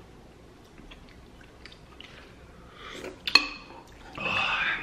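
Eating sounds at a table: quiet for the first few seconds, then one sharp clink of chopsticks against a stainless-steel pot or bowl, briefly ringing, and near the end a loud, noisy sip of hot noodle soup from a wooden spoon.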